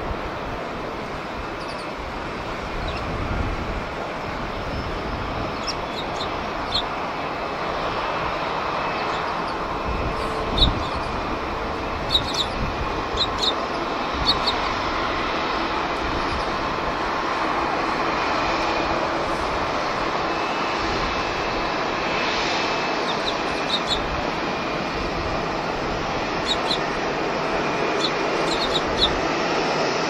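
Steady jet aircraft noise that swells slowly in the first half, with short high chirps from Eurasian tree sparrows scattered through it.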